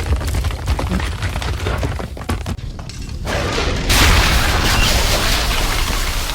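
Deep, continuous rumbling with scattered clattering and cracking. About four seconds in, a louder rushing, crashing noise sets in and continues.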